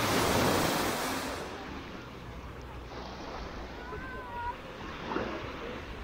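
Small Black Sea waves washing onto a sandy beach, with a louder rush of surf in the first second and a half that then settles to a steady wash.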